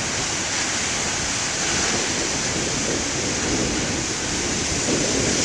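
Strong wind blowing across the microphone, a steady rushing noise that drowns out the big surf breaking on the beach.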